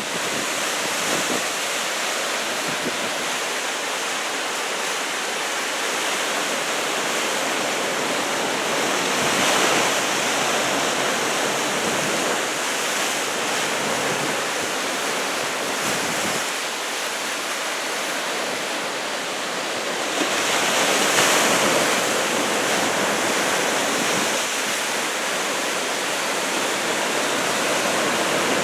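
Ocean surf from a 2 m typhoon swell, waves breaking and washing in a steady rush, with louder surges of breaking water about ten seconds in and again just past twenty seconds.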